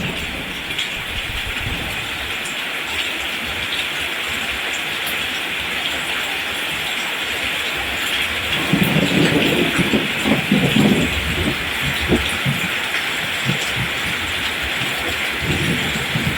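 Steady rain falling on a rice field, an even hiss throughout. A low, uneven rumble swells about halfway through, with a shorter one near the end.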